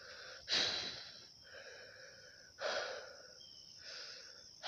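A person breathing heavily in and out close to the microphone, a breath about every second, some louder than others, as from effort.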